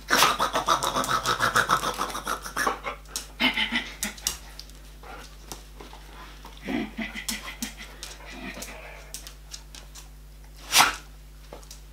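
Large dog panting rapidly while mouthing and tugging at a plush toy, then quieter, with a single sharp knock near the end.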